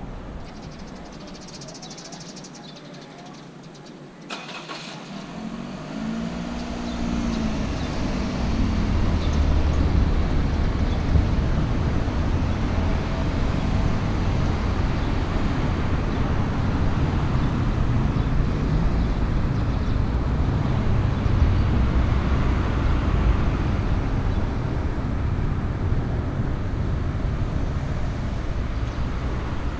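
Motor vehicle running: a click about four seconds in, then a low, steady rumble that builds over a few seconds and holds.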